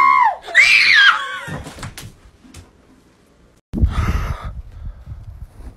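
A loud, high-pitched scream that ends at the very start, followed by a short squeal that rises and falls in pitch. After a quiet spell and a cut about four seconds in, there is low rumbling handling noise with a brief muffled burst.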